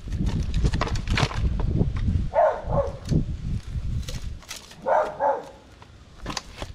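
A dog barking: two quick pairs of short barks about two and a half seconds apart. Between them come handling knocks and rustling from fish being worked in foil trays.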